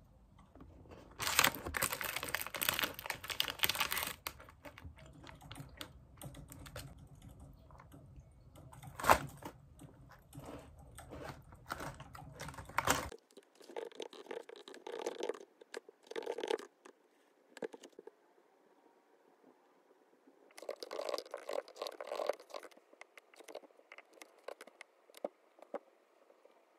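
Crinkling and crunching from a snack in a foil wrapper being eaten, followed from about halfway by short bursts of typing on a laptop keyboard.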